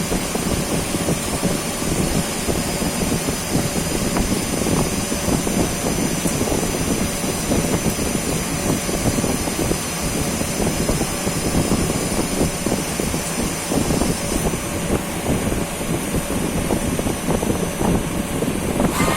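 CNC lathe running steadily through an OD turning job, a dense mechanical noise with a thin, steady high whine above it.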